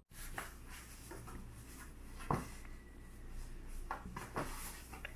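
A black cat and a calico kitten wrestling on a flattened cardboard box: scattered faint scratches and scuffs of claws and bodies on the cardboard, with a sharper knock a little over two seconds in.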